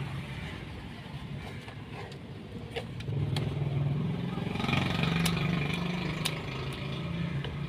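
A motor vehicle engine running, probably street traffic, that gets louder about three seconds in and stays up until near the end, with a few sharp clicks from handling plastic.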